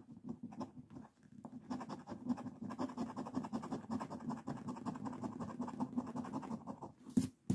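A scratch-off lottery ticket being scratched, its coating scraped away in rapid short strokes. The scratching stops shortly before the end.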